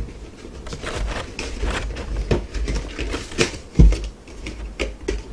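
A cardboard figure box and its packaging being handled on a tabletop: irregular clicks, taps and rustles, with one louder thump about four seconds in.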